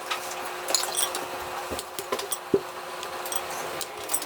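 Staples arcing inside a running microwave oven: irregular crackling snaps and pops of sparks over the oven's steady hum.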